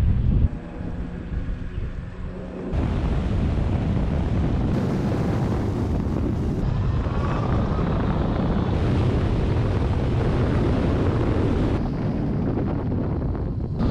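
Wind rushing over the onboard camera microphone of a Zero DS electric motorcycle in motion; the motor itself is nearly silent. The rush drops for about two seconds near the start and returns loud and steady from about three seconds in, with a faint rising whine about halfway through.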